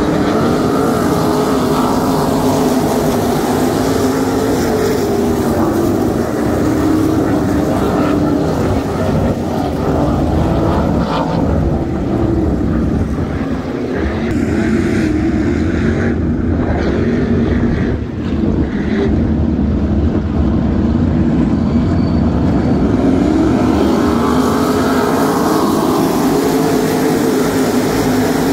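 A field of winged 305 sprint cars racing on a dirt oval, their 305-cubic-inch V8 engines running hard together. The engine pitch rises and falls as the pack passes and swings around the far side, and the sound dips briefly in the middle.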